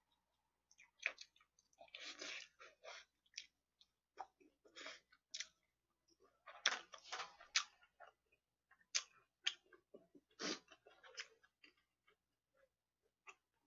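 A person chewing food close to a microphone: faint, irregular short clicking mouth sounds that thin out near the end.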